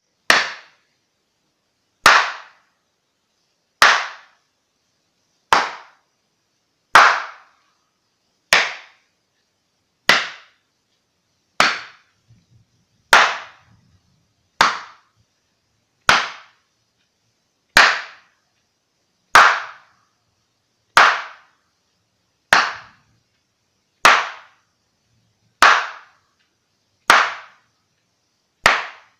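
A pair of slippers slapped together, one sharp slap about every one and a half seconds, each dying away quickly.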